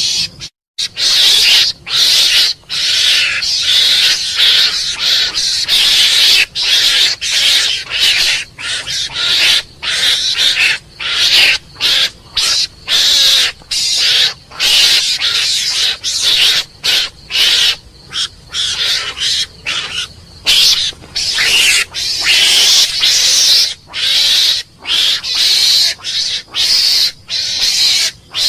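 Mongoose calling: a steady run of short, raspy, hiss-like bursts, about two a second, with brief gaps between them.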